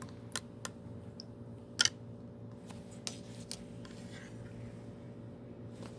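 Slime being played with by hand, giving scattered sharp clicks and pops, the loudest a quick double pop about two seconds in, over a steady low hum.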